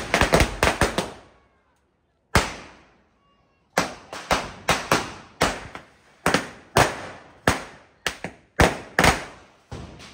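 Firecrackers going off: a quick cluster of sharp bangs, a single bang a little after two seconds in, then a run of bangs a third to half a second apart from about four seconds in, each with a short echoing tail.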